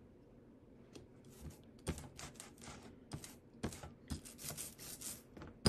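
Rubber brayer rolled back and forth through block-printing ink on a metal bench hook, a tacky crackling hiss on each pass. The strokes start about a second in and come faster near the end.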